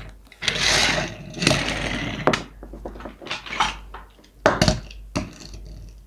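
Toy car packaging being opened and handled by hand: irregular rustling and scraping with sharp clicks and taps.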